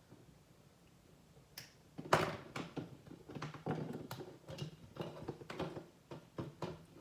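Quiet for about two seconds, then a run of clicks, knocks and rattles of small hard objects being handled, the loudest a sharp knock about two seconds in.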